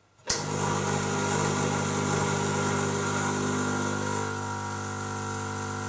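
An espresso machine's pump switches on with a click and runs with a steady hum. It is straining against a blind backflush basket, building pressure to push water and cleaning detergent back through the three-way solenoid valve.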